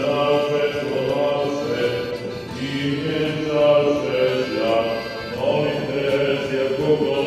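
Orthodox liturgical chant: voices singing a slow hymn in held, stepping notes.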